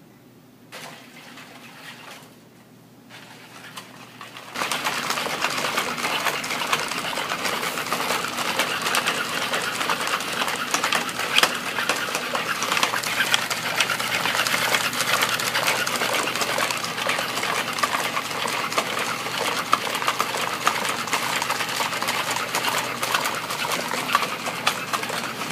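NAO humanoid robot's joint motors whirring and clicking as it walks, starting suddenly about four and a half seconds in and running on as a dense, busy mechanical buzz.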